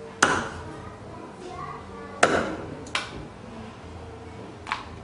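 Meat cleaver chopping through a boiled duck's feet on a thick round wooden chopping block: four sharp chops at uneven intervals, the first two the loudest.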